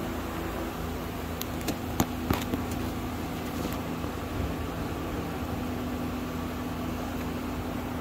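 A steady low machine hum with a faint, unchanging tone. A few light clicks come between about one and a half and two and a half seconds in, as plastic wiring-harness connectors are handled.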